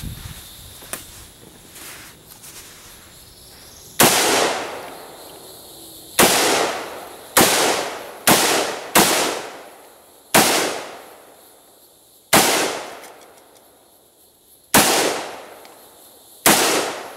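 Nine gunshots fired at an uneven pace while engaging targets on a three-gun course, each report ringing out and fading over a second or so; the first comes about four seconds in, with a quick group of four near the middle.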